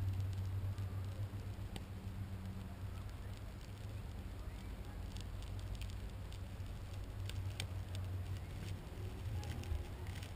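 A steady low mechanical hum, with scattered light clicks and ticks in the second half.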